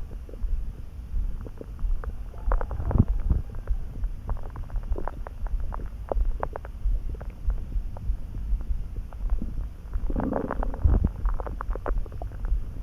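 Human stomach gurgling and rumbling: many short scattered gurgles over a steady low rumble, with a cluster about three seconds in and a longer, louder gurgle around ten seconds in.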